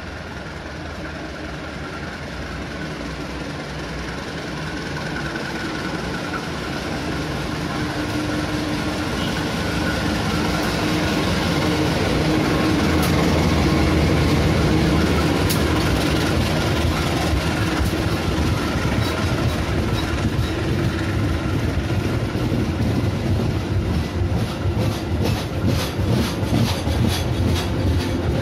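Diesel-electric locomotive approaching and running past close alongside, its engine growing louder to a peak about halfway through. Passenger coaches then roll past with a rhythmic clickety-clack of wheels over the rail joints, strongest near the end.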